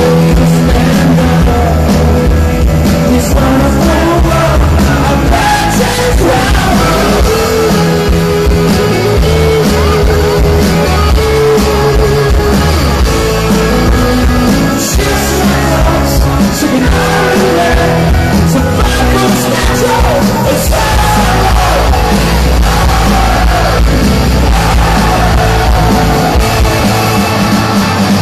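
Live rock band playing loud through the hall's PA, heard from within the audience: electric guitars, bass and drums, with singing over them.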